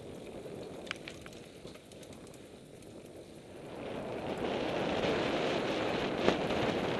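Mountain bike riding along a dirt trail: tyre rolling noise, wind on the microphone and a few clicks and rattles from bumps. The noise swells about four seconds in, as the bike comes out of the woods onto an open sandy track.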